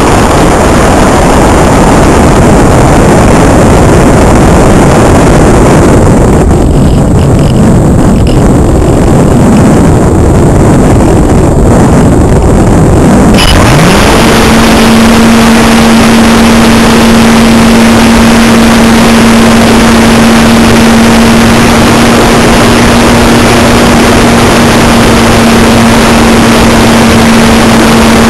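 Multiplex Cularis model glider in flight, heard from its onboard camera: loud wind rush over the microphone, then about halfway in its electric motor and propeller start, the whine rising quickly to a steady pitch and holding.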